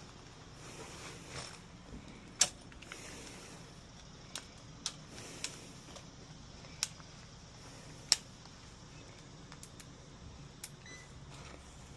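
A series of sharp, brief clicks and taps at irregular intervals over a faint background hiss, the loudest about two and a half seconds in and again about eight seconds in.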